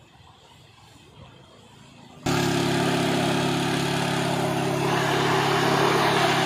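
Low background for about two seconds, then suddenly loud: a motor scooter's small engine running at a steady pitch, not revving, as it is ridden through shallow floodwater, over a loud rush of splashing water.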